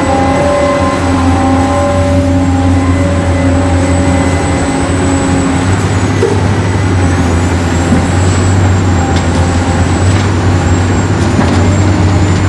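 Remote-control toy excavator and dump truck running: a steady, loud motor hum with a high whine. A set of steadier tones over the hum fades out about halfway through, and the high whine dips briefly and comes back.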